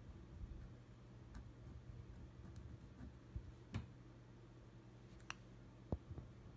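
Very quiet pen and paper handling: a few small, sharp clicks and taps as the pen finishes lettering and is lifted from the card, over a faint low steady hum.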